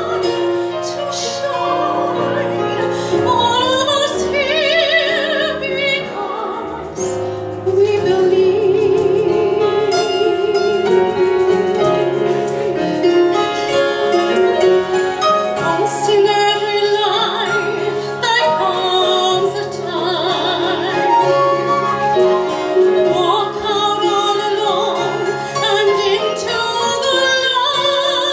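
A woman singing in an operatic style with wide vibrato, holding long notes, over live instrumental accompaniment.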